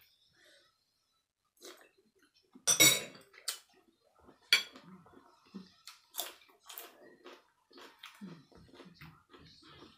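Metal spoon and fork clattering against the noodle bowl, loudest about three seconds in, followed by a series of separate clinks and the sounds of eating and chewing.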